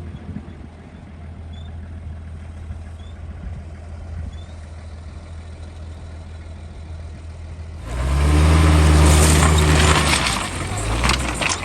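Off-road 4x4 engine running low and steady. About eight seconds in, an engine suddenly revs hard close by with a loud rush of noise, its pitch climbing again near the end.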